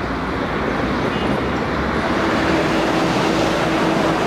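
Steady road and rail traffic rumble as an electric commuter train approaches a level crossing and a car passes. About two seconds in, it gives way to a slightly louder steady engine hum with a held tone, from a large coach bus standing close by.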